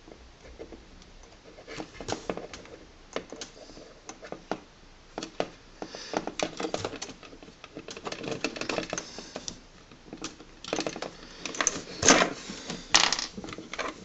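Small plastic connector tips of a universal laptop power adapter clicking and rattling as they are handled and fitted onto the cable's plug, in irregular clusters of sharp clicks, loudest near the end.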